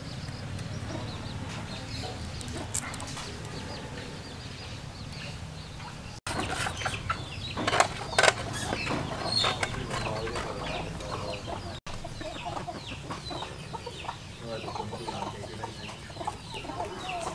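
Domestic chickens clucking throughout, with a couple of louder knocks about eight seconds in.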